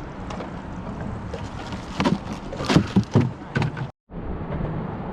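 A few sharp knocks and clatters over a steady low rumble aboard a small boat; the sound drops out for a moment, then the low rumble goes on.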